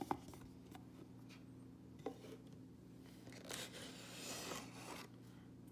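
Faint handling of a cardboard gift box: light rubbing and scraping as card inserts are slid out, with a small tap about two seconds in and a longer sliding rub from about three and a half to five seconds. A steady low hum sits underneath.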